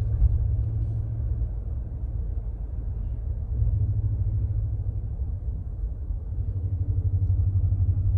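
Low, steady rumble of a car's road and engine noise heard from inside the cabin while driving.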